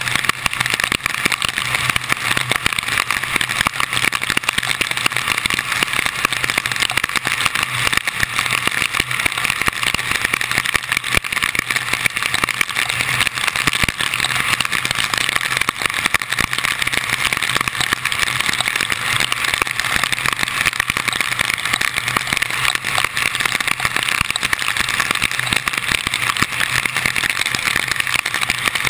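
Car driving in heavy rain, heard from a camera mounted on the outside of the car: a steady rush of wind, rain and tyre spray on the wet road, with raindrops pattering on the camera and a low engine hum underneath.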